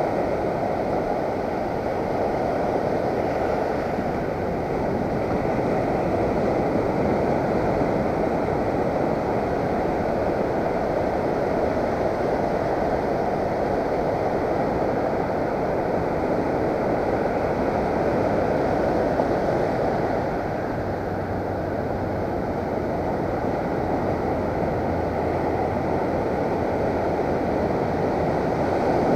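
Ocean surf breaking and washing up the beach, a steady rushing, with wind buffeting the microphone.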